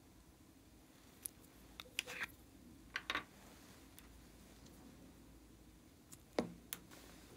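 Hard plastic lip balm cases clicking and tapping as they are handled and pried open: scattered sharp clicks, a small cluster about two and three seconds in, and the loudest knock about six seconds in.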